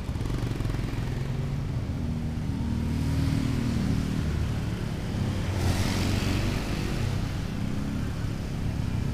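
Motorcycle engine running under way, heard from on the moving bike, with the revs rising about two to three seconds in. About six seconds in there is a brief rush of noise.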